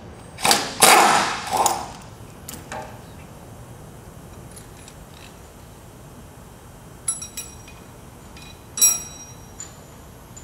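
Steel hand tools clattering and scraping against the blade bolts of a U.S. Industrial hydraulic shear. A loud scraping clatter about half a second in lasts over a second, then a few short ringing metal clinks come near the end.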